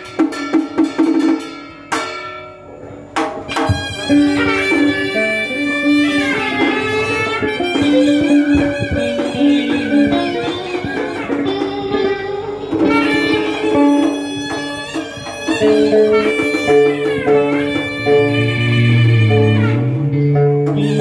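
Southern Vietnamese ceremonial ensemble music (nhạc lễ): a bowed string melody with wavering, sliding ornaments over plucked strings, with sharp percussion strokes in the first few seconds.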